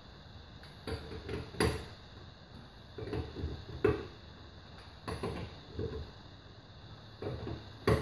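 A lug wrench on a car wheel's lug nuts as they are tightened: a run of sharp metal clicks and knocks in short clusters about every second or so, with the loudest a little over one and a half seconds in, about four seconds in, and near the end.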